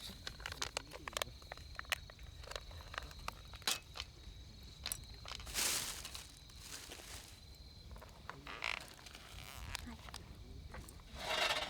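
Scattered light clicks and knocks of camp cooking gear being handled, with two short rushing hisses about six and eleven seconds in, over a steady high insect chirp that fades out past the middle.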